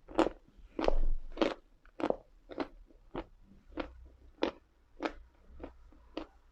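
Chunks of Uslada edible chalk being chewed: sharp crunches at a steady pace, about one every 0.6 seconds.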